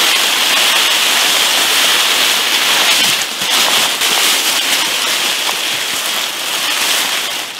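A whitetail doe's carcass dragged by a hind leg over a thick layer of dry fallen leaves, with the dragger's footsteps. It makes a loud, continuous crunching rustle of leaves that eases off near the end.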